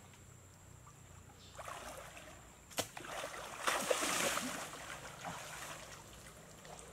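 Water stirring as a person wades in a shallow creek, a single sharp snap of a slingshot a little under three seconds in, then loud splashing as he charges through the water, fading toward the end.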